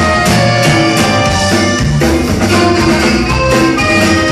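Live norteño band playing: button accordion and saxophone carrying held melody notes over electric bass, acoustic guitar and a drum kit keeping a steady beat.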